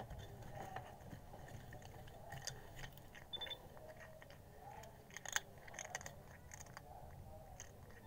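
A calico cat chewing crunchy snack chips, with faint, irregular crisp crunches. The loudest crunch comes about five seconds in.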